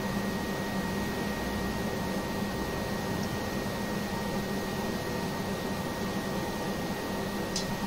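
Steady hum and hiss of a forge blower pushing air into the fire while the blade heats, with a faint tick near the end.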